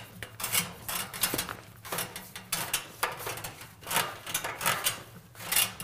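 Rubber bottom seal of a garage door being pulled out of its metal retainer channel in a series of tugs, each a short scraping rub of rubber sliding through the track, about one or two a second.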